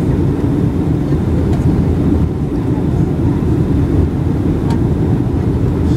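Steady cabin rumble inside a Boeing 737-800 on approach, from its CFM56-7B engines and rushing air, heard from a window seat over the wing with the flaps extended.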